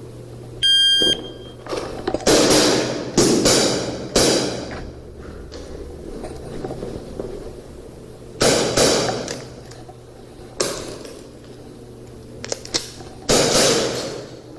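An electronic shot-timer start beep, held for about half a second, about a second in. Then a string of airsoft revolver shots, each a sharp crack with a short ringing tail, in clusters with a longer pause in the middle.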